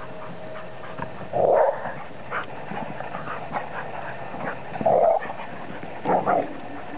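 Dog giving short, rough play barks with a growly edge during rough play with another dog, three loud barks spaced a few seconds apart.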